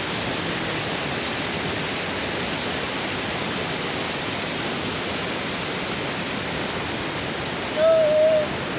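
Nabuyole Falls rushing: a steady, unbroken wash of falling water. Near the end, a short high-pitched call briefly rises above it.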